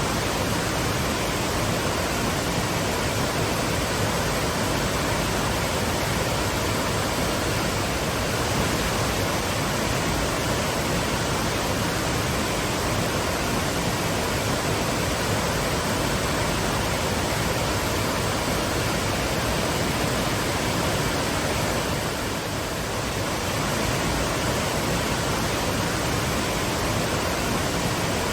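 Twin waterfalls pouring into a pool: a steady, even roar of falling water.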